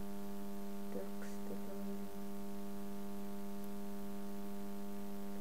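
Steady electrical mains hum in the recording, a constant buzzing tone, with a few faint short ticks between one and two seconds in.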